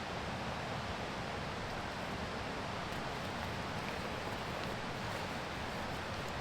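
Steady rush of a full, fast-flowing river, an even noise with no breaks.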